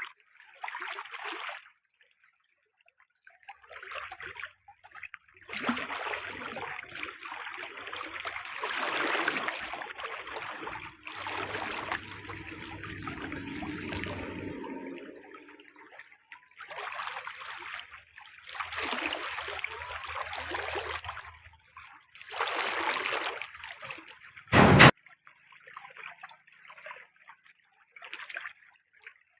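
Water pouring and splashing in stop-start bursts, with a single sharp knock near the end.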